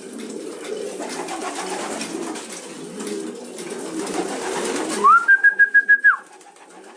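Racing pigeons cooing, a low murmur. About five seconds in, a loud high whistle-like tone rises, holds for about a second in about eight quick pulses, and falls away.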